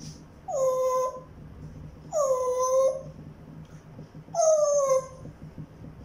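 African grey parrot giving three drawn-out whining calls, each sliding down in pitch, about two seconds apart.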